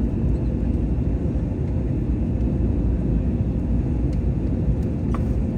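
Steady cabin noise inside an Airbus A320neo during its descent: a constant engine and airflow rumble, with a faint steady hum.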